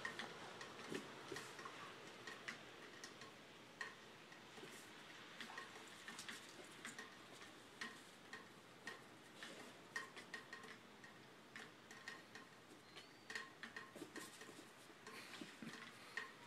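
Near silence with faint, irregular light ticks and clicks.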